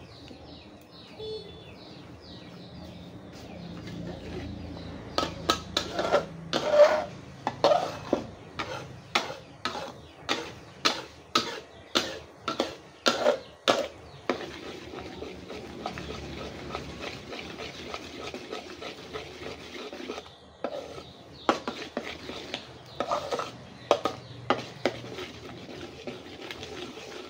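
Metal spatula scraping and knocking against a steel wok as a thick, bubbling sauce is stirred, in a long run of quick strokes about two a second, then a pause, then a shorter run near the end. A steady low sizzle of the simmering sauce runs underneath.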